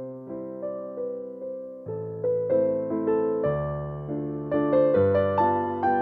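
Background music: soft electric piano playing a slow melody over bass notes, each note struck and fading.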